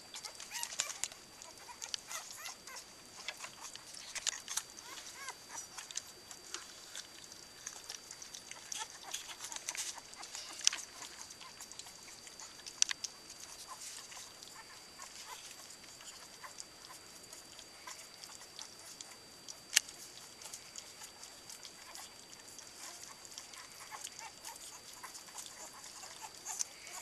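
Sixteen-day-old Cardigan Welsh Corgi puppies lapping and smacking at food in a shared round feeding bowl, many small wet clicks with a few sharper ones, and faint puppy squeaks. A faint steady high whine runs underneath.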